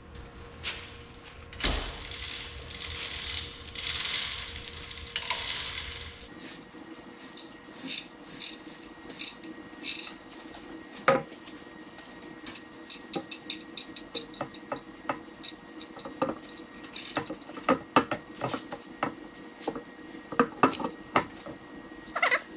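Steel hoist chain clinking and rattling in many short metallic taps as it is pulled and handled, over a faint steady hum. A soft rushing noise fills the first few seconds before the clinking starts.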